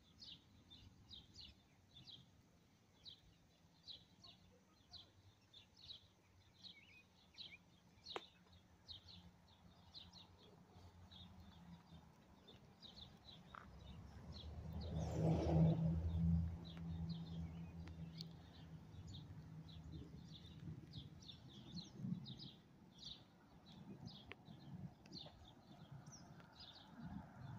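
Small birds chirping repeatedly, short high chirps about twice a second, with a low rumble swelling up around the middle and fading away.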